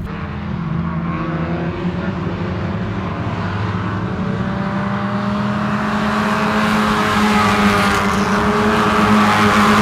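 A pack of classic Lada (Zhiguli) race cars, several engines running at once in a steady drone that grows louder as the pack approaches.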